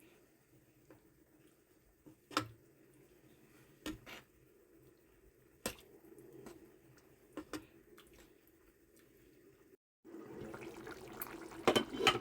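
Pot of beef stew simmering, with a faint bubbling hiss and sharp single pops every second or two as bubbles burst. It gets louder and busier near the end.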